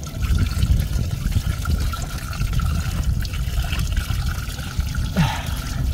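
Engine coolant pouring and splattering out of the loosened water-pump drain plug opening on a Saturn Sky, a steady uneven splashing as the cooling system drains.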